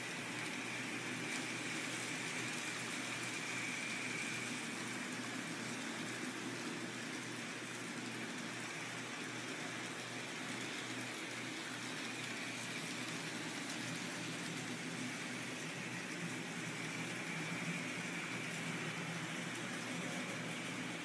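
N-scale model trains running on the layout's track: a steady hum of small electric motors and wheels, with a high thin whine that grows louder twice as locomotives pass close.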